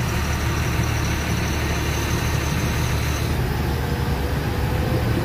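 Diesel truck engine running steadily at low speed, a constant low drone heard from inside the cab.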